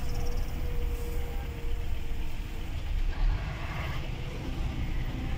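A truck's engine and road noise heard from inside the cab as it drives in traffic: a steady low rumble, with a faint steady hum in the first two seconds and a brief louder swell about three seconds in.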